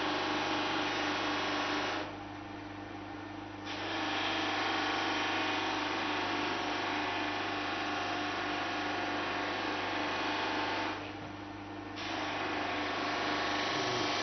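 C.R. Clarke bench buffing machine running steadily, with a hum and the rushing friction noise of a plastic edge pressed against the spinning buffing wheel. The rushing noise drops away twice for a second or so, leaving only the motor's hum, as the workpiece comes off the wheel.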